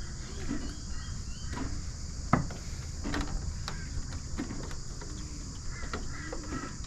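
Steady high-pitched insect chorus, with scattered clicks and one sharp clack a little over two seconds in.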